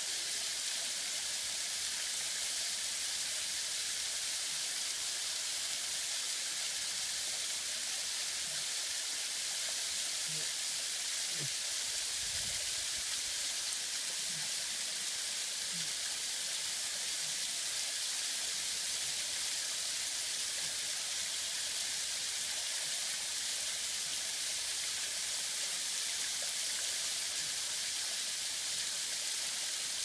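Thin waterfall splashing down a mud and rock face: a steady, even hiss of falling water.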